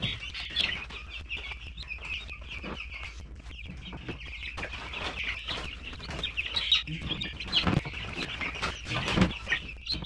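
A crowd of month-old black Australorp chicks peeping continuously in high, short calls. In the second half there are a few louder knocks as a plastic storage tote is set down and handled.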